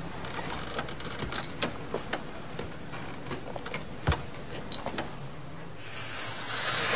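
Faint scattered clicks and small knocks over a low hum, with a sharper knock about four seconds in and another shortly after; a rush of noise swells up near the end.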